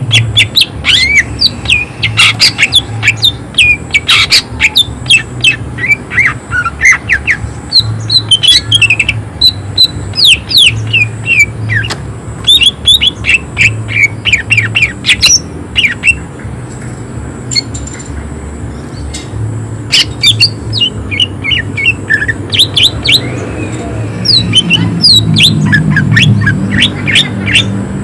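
Cucak ijo (green leafbird) singing a fast run of short, sharp, harsh notes fired off in quick bursts, with a brief lull past the middle. A steady low hum runs underneath.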